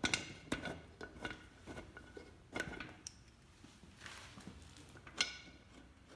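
Small metal clicks and clinks from bolts and metal tubes being handled while fitting bolts into a chair backrest: a quick run of light clicks in the first two seconds, a soft rustle around four seconds, then one sharper click a little after five seconds.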